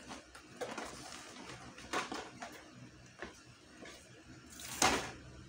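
Cardboard box and clear plastic packaging insert being handled and pulled apart: a few separate rustles and crackling plastic knocks, the loudest one near the end.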